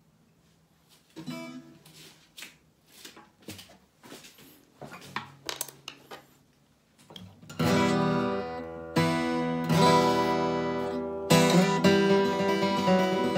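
Gibson Hummingbird acoustic guitar: a few soft, scattered single notes, then, about halfway through, loud strummed chords struck several times and left to ring.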